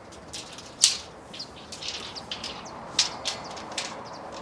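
Small birds chirping, with a few sharp clicks, the loudest about a second in and more around three seconds.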